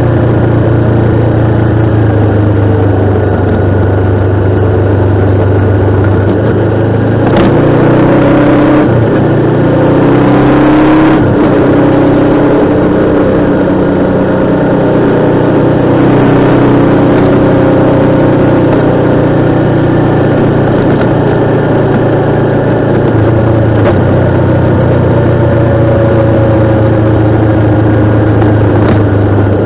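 Motorcycle engine running steadily under way, its pitch shifting up and down for a few seconds between about seven and eleven seconds in, then settling back to an even note.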